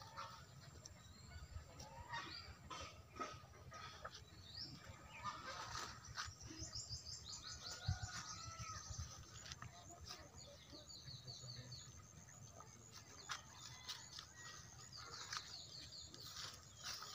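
Small birds chirping, with several quick runs of high repeated notes, against a faint low rumble and scattered small clicks.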